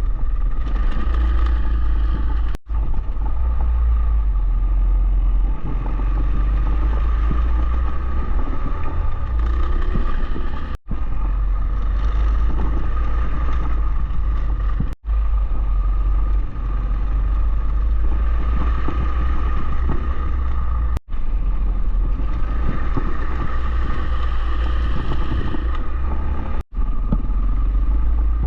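Dual-sport motorcycle running on the trail, engine drone under heavy wind rumble on the microphone, broken by about five brief dropouts.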